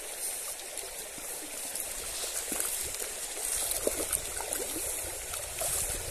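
River water flowing steadily over stones: a constant rushing hiss, with a few faint short sounds about halfway through.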